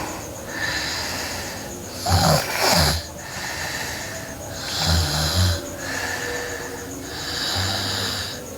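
A sleeping girl snoring: three snores about two and a half seconds apart, each a low rattling buzz on the in-breath, with softer airy breathing between them.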